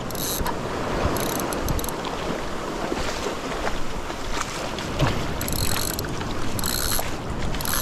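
Surf washing and wind on the microphone while a Daiwa 22 Exist spinning reel is wound in against a hooked tailor. Several short, high buzzing bursts come and go, twice near the start and three times in the second half.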